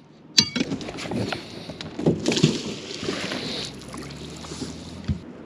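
Gear being handled in a small boat: a sharp metallic clink about half a second in, then rustling, scraping and soft knocks, with water sounds around the hull.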